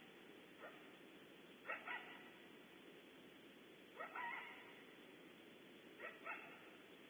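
Coyote barking: short, sharp barks that rise in pitch, some in quick pairs, coming every couple of seconds over a steady hiss from the nest-cam microphone.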